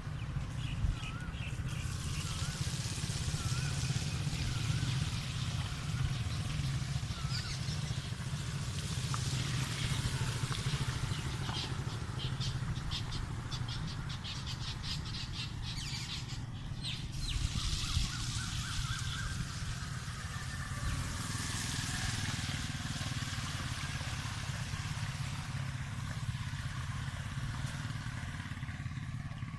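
Outdoor ambience of birds chirping over a steady low rumble, with motorcycles riding through floodwater on the road. A bird repeats a wavering call over the first several seconds, and a run of quick clicking chirps comes through the middle.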